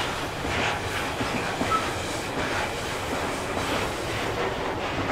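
Container freight train's wagons rolling past on a curve, a steady rumble and clatter of wheels on rail, with one brief high squeak a little under two seconds in.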